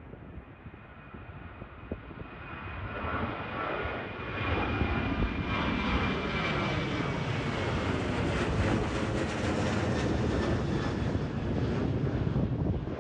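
Boeing 737 jet airliner climbing out at takeoff thrust. The engine noise swells over the first few seconds and stays loud as the plane passes, with a high fan whine that slides down in pitch as it goes by. It drops off suddenly at the very end.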